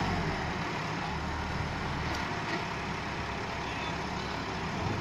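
Massey Ferguson 375 tractor's four-cylinder diesel engine running hard under heavy load as it strains on a chain against a brick water tank too heavy to budge.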